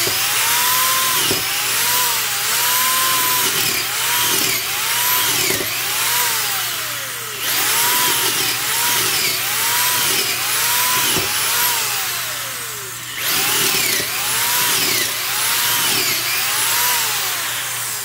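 Ryobi D43 3/8-inch corded drill with a planetary gearbox boring holes in wood with a twist bit. Its motor whine sags and recovers in pitch about once a second as the bit loads up and frees, over the rasp of the cutting. Under load it sounds pretty nice.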